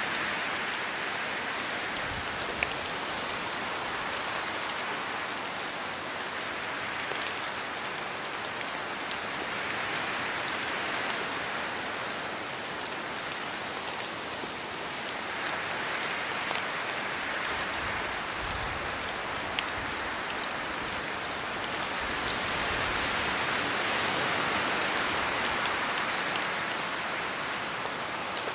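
Steady rain falling in a forest, its hiss swelling and easing every few seconds as if in gusts of wind, with scattered sharp drop ticks.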